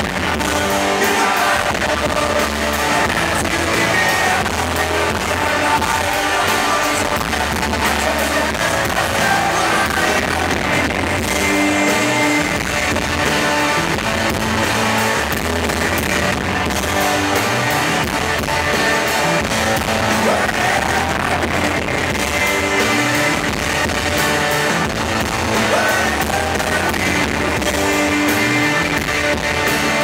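Live rock band playing a song: a strummed electric guitar, a drum kit and a lead vocal, recorded from the audience in a large hall.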